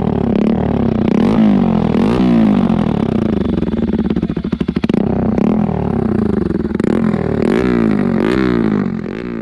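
Bajaj Pulsar NS200's single-cylinder engine revved again and again through an open exhaust with the silencer removed. It gives a loud, hard exhaust note that climbs and falls back with each blip of the throttle, dipping briefly about halfway through.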